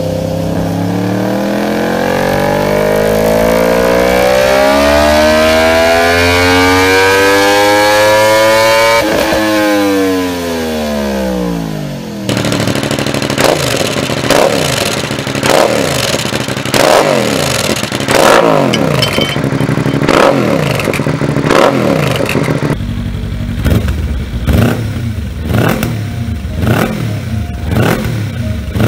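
Three sport motorcycles through aftermarket exhausts in turn. First a Yamaha R1's inline-four on a dyno, its revs climbing steadily for about nine seconds before dropping off. Then a Suzuki SV650 V-twin with an Akrapovic silencer is blipped over and over at standstill, and near the end a Kawasaki Ninja 300 parallel twin is revved in quicker blips.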